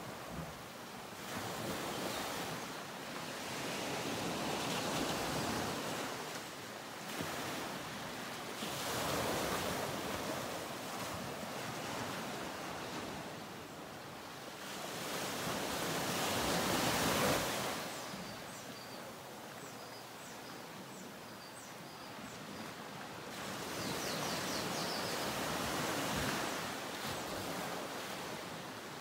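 Small ocean waves washing onto a sandy beach, the surf noise swelling and easing every few seconds.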